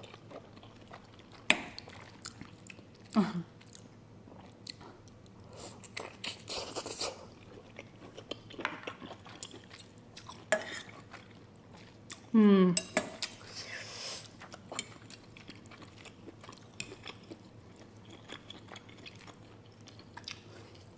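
Close-up eating sounds: chewing a mouthful of noodle soup, with metal fork and spoon clicking against a ceramic bowl. Two short hummed 'mm' sounds falling in pitch, the louder one about twelve seconds in.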